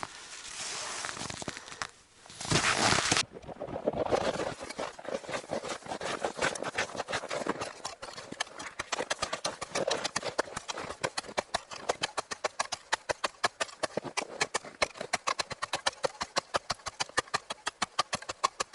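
Rustling noise that cuts off about three seconds in, followed by a long, rapid, regular run of sharp clicks, several a second.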